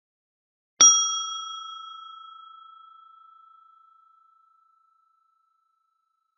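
Small brass bell struck once, ringing out clear and high, then fading slowly over about four seconds.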